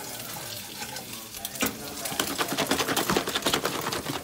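Food sizzling in a stainless steel frying pan on a gas stove while a utensil is stirred and scraped against the pan, giving many sharp clicks that come thicker in the second half.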